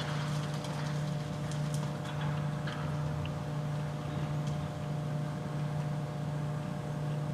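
A steady low mechanical hum with a few faint higher tones above it and some light clicks in the first few seconds.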